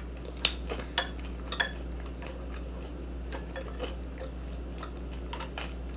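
Person eating: a few sharp clicks in the first two seconds, then fainter scattered clicks of chewing and mouth sounds, over a steady low hum.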